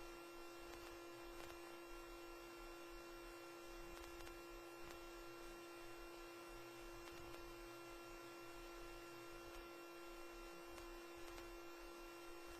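Near silence on a dead broadcast audio feed: only a faint steady electrical hum, one tone strongest with fainter higher tones above it, over low hiss.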